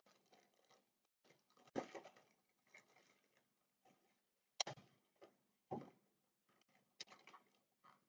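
A few short, faint crinkles of a clear plastic bag as a pencil case is handled and slid out of it, with near silence between them.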